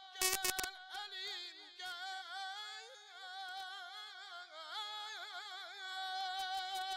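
A man singing a devotional hymn in an ornamented, wavering melody with vibrato over a steady held drone. About half a second in, a quick run of sharp clicks.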